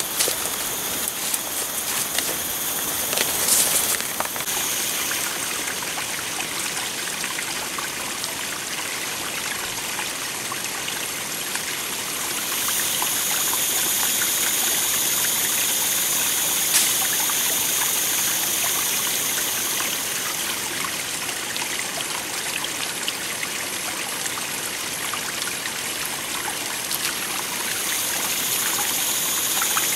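A small rocky stream trickling and splashing over stones, a steady rush of water that grows louder about twelve seconds in. There are a few sharp brushing and snapping footstep sounds in the first seconds.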